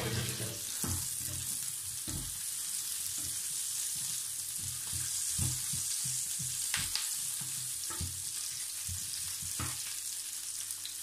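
Garlic and onion sautéing in rendered pork fat in a frying pan, a steady sizzle, while a wooden spatula stirs them with repeated soft knocks and scrapes against the pan; the stirring stops shortly before the end.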